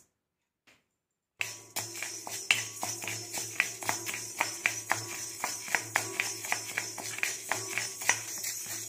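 Dry white urad dal being stirred with a spatula in a hot, thick-bottomed wok with no oil: the grains rattle and the spatula scrapes the pan, about three strokes a second. It starts about a second and a half in, over a steady low hum and hiss.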